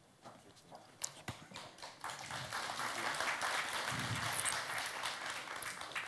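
Audience applauding; the clapping swells about two seconds in and holds steady, after a couple of sharp knocks.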